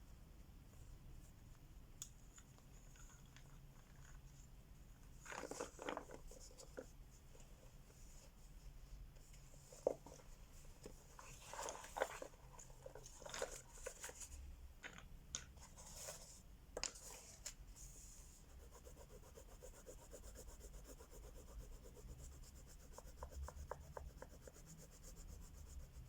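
Crayola wax crayons scratching and rubbing on paper in faint, scattered bursts of short strokes, with a quick run of back-and-forth strokes near the end. A single light tick about ten seconds in.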